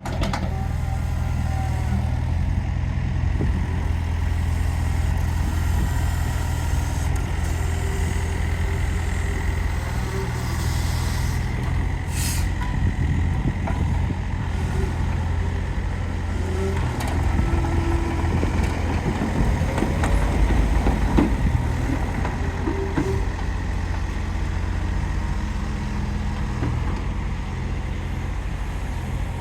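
Wacker Neuson 50Z3 compact excavator running steadily, with a low engine hum and a faint high whine over it. A short hiss comes about twelve seconds in, and the engine gets louder for a few seconds about two-thirds of the way through.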